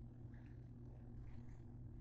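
A low steady hum with a few faint, soft scrapes of a plastic spatula moving potato slices in a frying pan.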